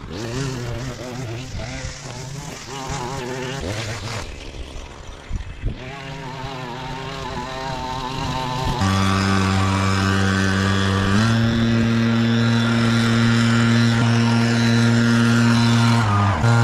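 Small engine running: its pitch wavers for the first half, then from about nine seconds in it settles into a steady, louder drone that steps up in pitch around eleven seconds and dips briefly just before the end.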